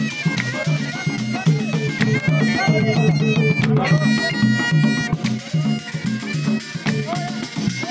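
A traditional folk troupe playing bagpipe and hand drums: a bagpipe melody over a drone, driven by a steady drum beat.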